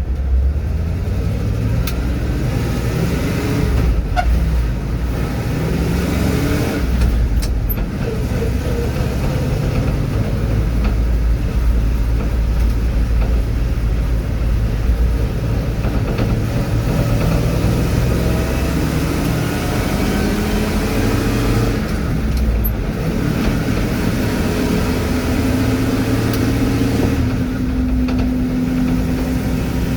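Loaded truck driving, heard from inside the cab: steady engine and road noise, the engine pitch rising and falling as the speed changes.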